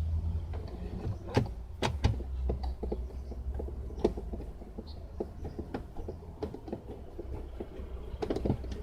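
Scattered clicks and knocks of hands working on a car door's parts during reassembly, over a steady low rumble.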